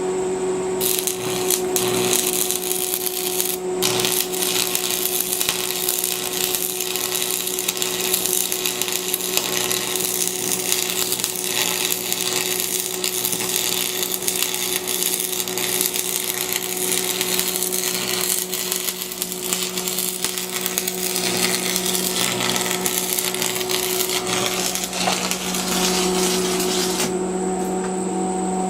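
Electric arc welding on a steel gate hinge: the arc crackles steadily, starting about a second in and cutting off near the end, over a steady hum.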